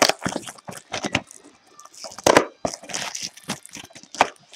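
Close handling noise of trading cards and their packaging: irregular clicks, taps and crinkles, with the sharpest knocks about two seconds in and again near the end.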